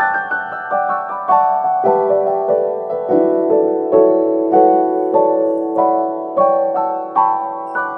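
Background music: a slow piano melody of struck notes over held lower notes.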